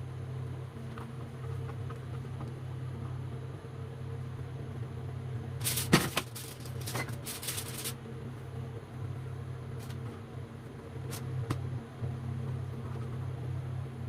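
A steady low machine hum, like a kitchen fan, runs throughout. Midway comes a couple of seconds of sharp kitchen clatter, utensils knocking against cookware, followed later by a few single clicks.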